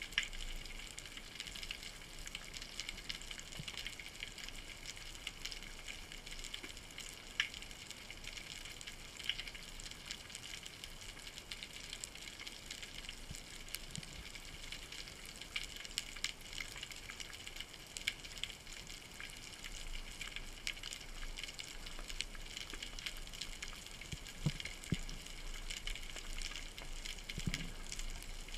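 Underwater ambience: a steady faint hiss full of scattered small clicks and crackles, with a few low knocks near the end.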